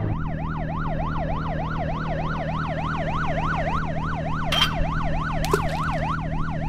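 Police yelp siren sound effect, wailing rapidly up and down about three times a second, over a steady low engine-like drone, for a toy police boat setting off on a chase.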